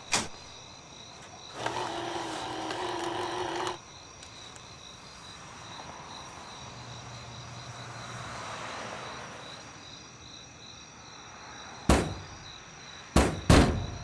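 Snack vending machine: a button click, then its dispensing motor whirring for about two seconds and stopping, but the M&M's do not drop. Crickets chirp steadily in the background. Near the end a fist pounds the machine three times.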